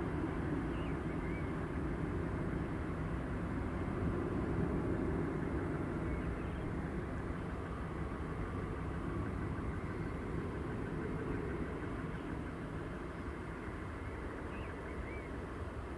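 Steady low rumble of a Boeing 737-800's CFM56 jet engines as the airliner comes in to land, easing slightly in loudness, with a few faint high chirps over it.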